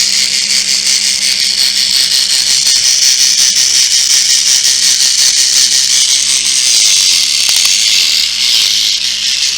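Small battery-powered electric motor and gears of a Trackmaster toy narrow-gauge engine running steadily with a loud, even whir. It is running on a freshly fitted battery.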